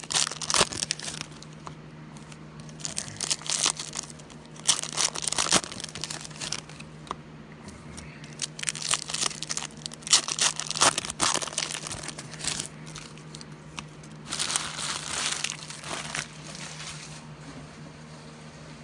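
Foil trading-card pack wrappers being torn open and crinkled by hand, in repeated bursts.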